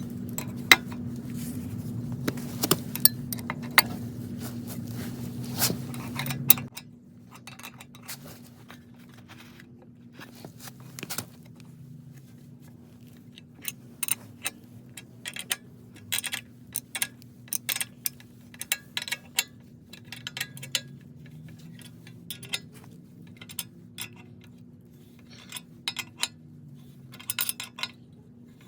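Scattered sharp metallic clicks and clinks of hand tools and small hardware being handled, over a steady low hum that is louder for the first six seconds or so.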